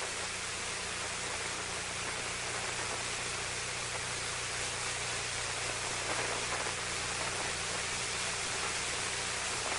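Steady static hiss of an open radio channel between transmissions, with a low steady hum underneath.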